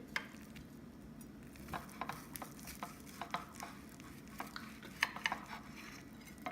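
Knife slicing cooked gyro meat: light, irregular clicks and taps of the blade.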